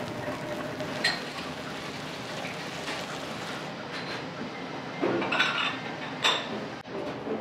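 Metal spatula clinking and scraping against a cast-iron serving plate as a piece of okonomiyaki is cut and lifted: a sharp clink about a second in, then a cluster of clinks and scrapes around five to six seconds in, over a steady hiss.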